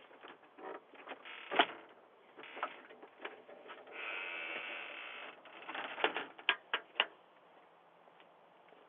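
Scattered sharp clicks and knocks, the loudest about one and a half seconds in and a quick run of them between six and seven seconds in, between stretches of faint rustling noise.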